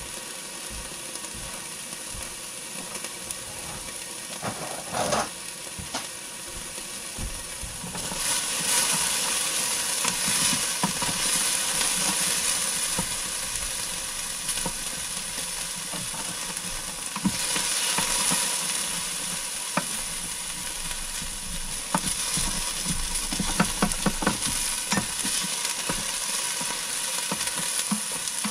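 Food sizzling and frying in a large stainless cooker pot while it is stirred, the utensil scraping and clicking against the pot. The sizzle swells about eight seconds in, and a run of clicks from the stirring comes near the end.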